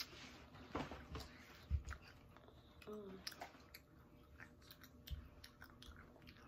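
A child chewing and biting into a fried chicken drumstick at close range, with many small wet mouth clicks and smacks. Two soft low thumps, about two and five seconds in, and a brief pitched murmur about three seconds in.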